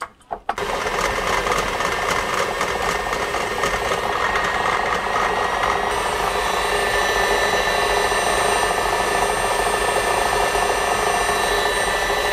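Electric mixer switched on about half a second in and running steadily with a motor whine, beating softened butter.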